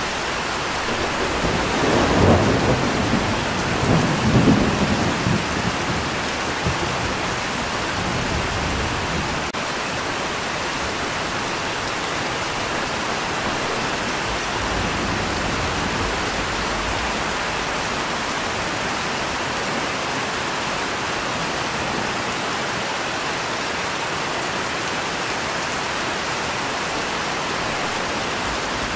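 Steady rain with thunder: a rolling rumble about two seconds in and a second about four seconds in, fading back into the even hiss of rain.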